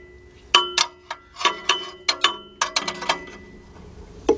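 Steel pry bar knocking and clinking against the exhaust clamp and pipe while prying the clamp loose, a dozen or so irregular metallic knocks, several leaving a short ringing tone.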